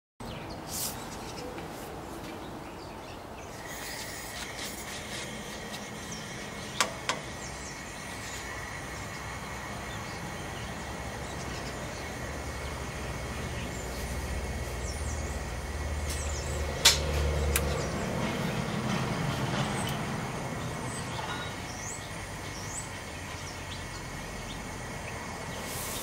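Outdoor background in which a vehicle rumbles past in the middle, with birds chirping, a faint steady high tone, and a few sharp clicks.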